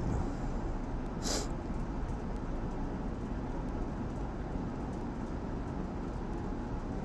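Steady low background rumble with one short hissing noise about a second in.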